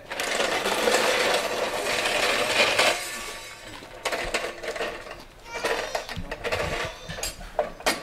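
Heavy carved wooden danjiri float being shoved along on wheeled dollies: a dense rattling grind for about three seconds, then scattered knocks and clicks as it is nudged into place.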